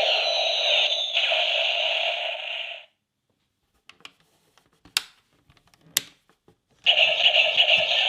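Kamen Rider Fourze Driver toy transformation belt playing its electronic sound effects through its small speaker. The sound cuts off suddenly about three seconds in. After a quiet gap come two sharp clicks about a second apart, and the belt's sound starts again near the end.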